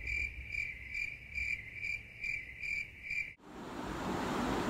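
Cricket-chirping sound effect, an even chirp about twice a second, used as the 'awkward silence' gag. It cuts off abruptly about three and a half seconds in, leaving faint room tone.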